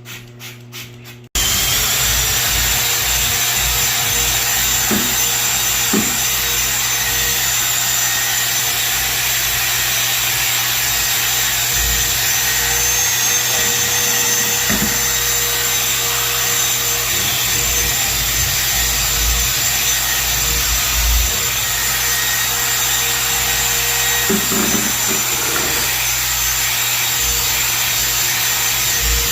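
A loud electric machine switches on about a second in and runs steadily: a motor whine over a harsh, even rubbing hiss.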